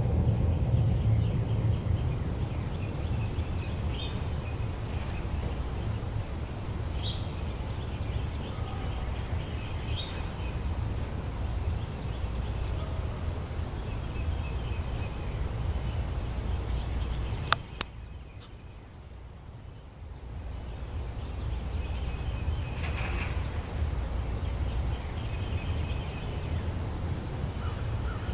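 A deep, steady rumble, which the recorder takes for distant jet engine testing at a nearby military base, with birds chirping over it. About two-thirds of the way through there are two sharp clicks, and the rumble drops for a couple of seconds before coming back.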